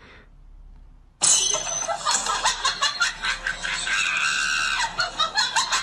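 Cat screaming loudly and harshly, starting suddenly about a second in and going on in rapid pulses.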